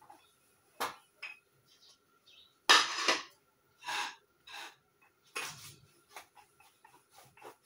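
A rolling pin knocking and rolling on a chakla board in short, irregular strokes, with a louder clatter about three seconds in and a run of light taps near the end.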